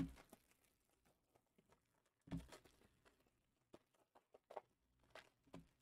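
Faint, sparse clicks and taps of trading cards being handled by hand, with a few soft thumps: one right at the start, one a little past two seconds in, and one near the end.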